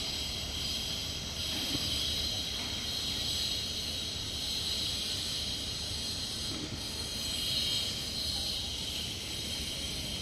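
Steady high-pitched insect chirring that swells a little around the middle and again near the end, over a low background rumble.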